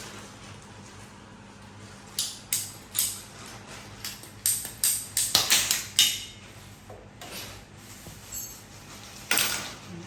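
A series of sharp, irregular clicks and knocks, with a quick cluster of them about five to six seconds in, over a low steady hum.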